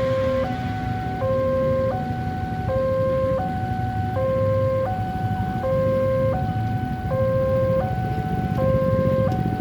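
Electronic warning alarm at a railway level crossing, sounding a two-tone signal that alternates steadily between a lower and a higher pitch, switching about every 0.7 seconds: the warning that a train is approaching and the barrier is closed. A low rumble runs underneath.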